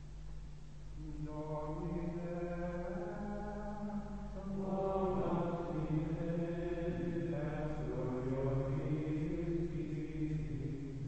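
Carthusian monks chanting plainchant in unison, male voices singing slow melismatic lines. A low note is held at first; the melody enters about a second in and grows fuller about four and a half seconds in.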